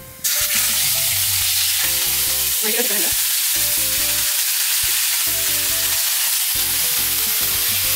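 Raw chicken pieces sizzling steadily and loudly as they are dropped by the handful into hot spiced oil in a metal pan. The sizzle starts suddenly just after the start.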